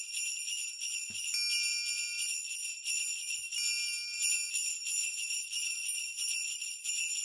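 Sleigh bells jingling steadily, a bright continuous shaking that starts suddenly.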